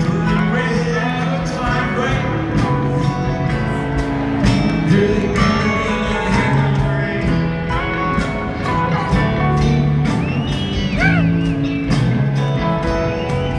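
Rock band playing live in an arena, heard from the seats: guitars, keyboards, bass and drums, with singing.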